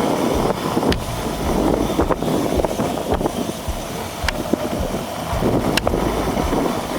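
Chicken and bell peppers sizzling in a cast iron skillet over an outdoor burner, a steady hiss with scattered sharp crackles, with wind buffeting the microphone.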